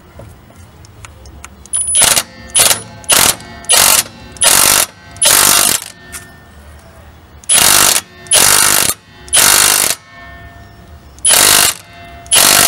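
Impact wrench hammering in about eleven short bursts of half a second or so, spinning a lug nut down over a washer stack to pull a new wheel stud's splined shank through the hub flange until it seats flush.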